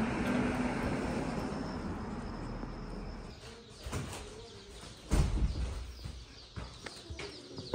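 Faint peeping of a shipment of baby chicks in their boxes, with a loud thump about five seconds in, like a door or box being set down.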